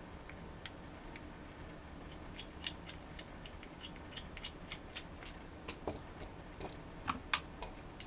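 Small precision screwdriver ticking and scraping on the screws of a 2.5-inch hard drive's plastic mounting bracket as the screws are turned. The clicks are faint and irregular, come more often after about two and a half seconds, and a sharper click comes near the end.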